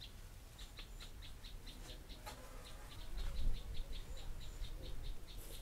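A small animal chirping: an even run of short, high chirps, about four to five a second, with a sharp click about two seconds in.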